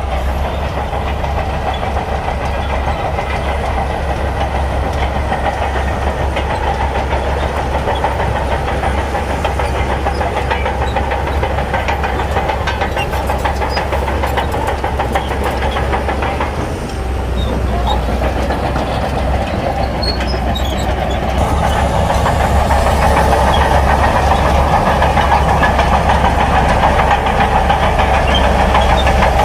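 Heavy diesel earthmoving machinery running steadily under load, with a constant low rumble and a rattling mid-range noise. It eases briefly about two-thirds of the way through, then grows louder near the end.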